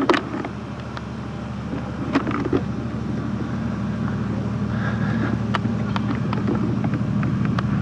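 Steady low drone from a C-130 Hercules running on the apron, with wind buffeting the microphone and a few handling clicks.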